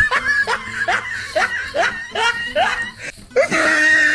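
Looped laughter sound effect: a run of quick 'ha-ha' syllables that breaks off about three seconds in and starts over the same way.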